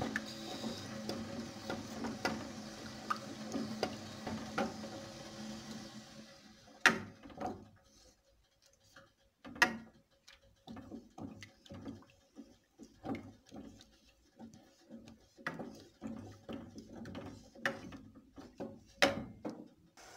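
A wooden spatula stirring and scraping in an aluminium saucepan of heating milk, butter and sugar, with irregular taps and clicks against the pan. Stirring goes on without stopping so the clumped sugar dissolves. A steady low hum runs under it for the first several seconds, then stops.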